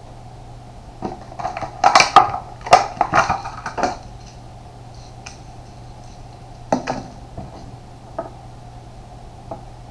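Small fishing tackle handled on a wooden table: a cluster of clicks and knocks as hard metal and plastic pieces are picked up and set down, then a single knock and a couple of faint taps, over a low steady hum.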